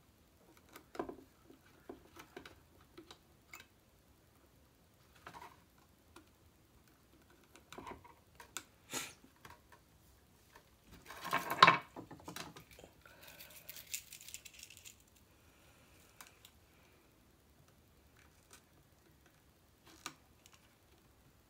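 Scattered small clicks and taps of hands handling wires and tools on a workbench, with a louder clatter about halfway through followed by a short hiss.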